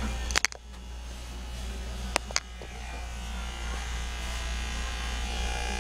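Electric hair clippers buzzing steadily during a haircut, with a few sharp clicks about half a second in and again around two seconds in.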